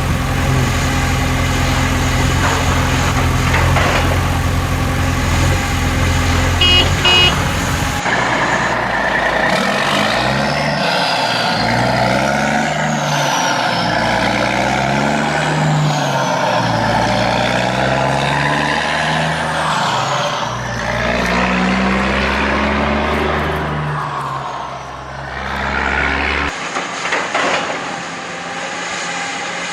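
Truck engine sound effects. First a steady idle with two short beeps about seven seconds in, then an abrupt cut to an engine revving up and down over and over, which cuts to a different sound again near the end.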